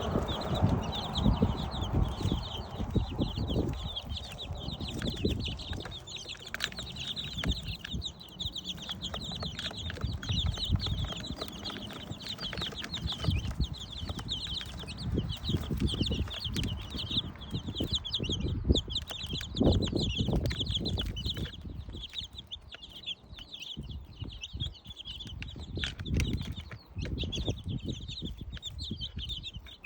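Flock of two-week-old chicks peeping constantly in many overlapping high chirps as they feed on raw ground pork, with frequent low knocks and scuffling from their pecking and jostling.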